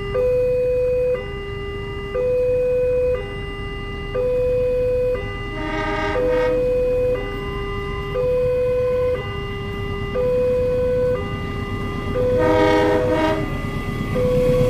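Railway level-crossing warning signal sounding its steady two-tone alarm, a high tone and a low tone alternating about a second each, over a low rumble of traffic. A short horn blast sounds about six seconds in and again near the end.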